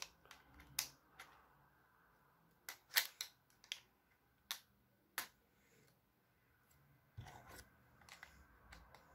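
Plastic Lego bricks clicking as they are handled and pressed together: a dozen or so separate sharp clicks with quiet gaps between them.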